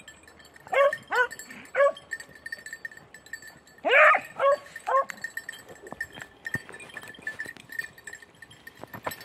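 Beagle hounds baying: two bursts of three short yelping cries each, every cry dropping in pitch. The hounds are giving tongue while working a hare's scent.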